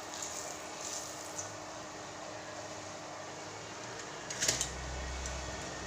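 Pumpkin cake frying in hot oil in a pan, a steady soft sizzle, with one brief clatter about four and a half seconds in.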